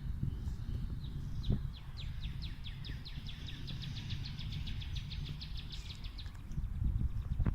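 Female northern cardinal singing: a run of quick down-slurred whistled notes that speeds up into a rapid trill lasting about five seconds, over a steady low rumble of background noise.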